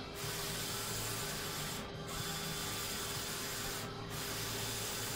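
Roland wide-format inkjet printer running a print job: a steady hiss with a low hum, dipping briefly about every two seconds as the print head makes its passes.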